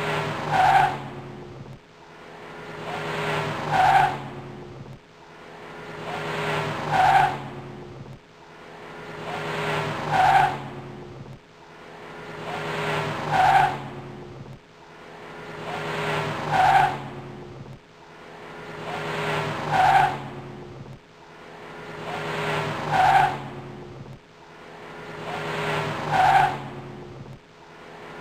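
A car rising in level to a short, sharp tire squeal at its loudest, the same clip looping about every three seconds, nine times over.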